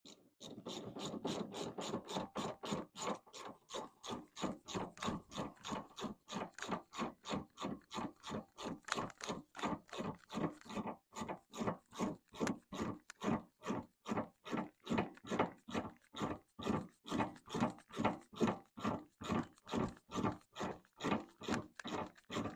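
Ratchet wrench tightening the nut on a sway bar end link: a steady run of ratchet clicking, about two and a half strokes a second, as the wrench is swung back and forth.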